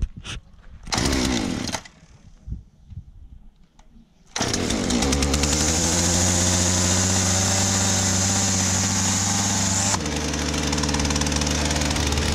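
Husqvarna 236 two-stroke chainsaw being cold-started: a pull on the starter cord, then a few seconds later the engine fires and runs steadily at a fast idle. About two seconds before the end it drops to a lower, rougher idle.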